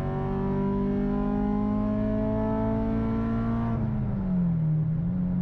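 Acura RSX Type S's K20Z1 four-cylinder with an aftermarket exhaust, pulling steadily: the engine note climbs slowly for about four seconds, then drops and settles to a steady cruise.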